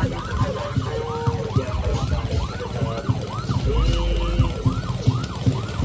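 Emergency-vehicle siren on a passing village standby van, a fast rising-and-falling yelp repeating about two to three times a second, with low engine rumble underneath; the siren stops near the end.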